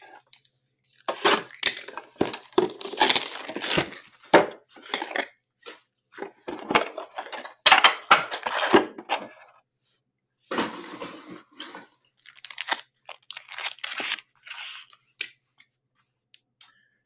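Plastic shrink wrap being torn off a hockey card box, then foil card packs crinkling and rustling as they are handled, in repeated bursts with a short pause about ten seconds in.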